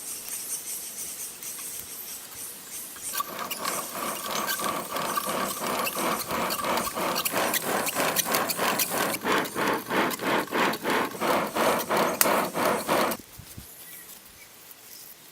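Rhythmic back-and-forth scraping strokes by hand, about two a second, that grow louder and then stop abruptly near the end, typical of shaping work on a stone tool.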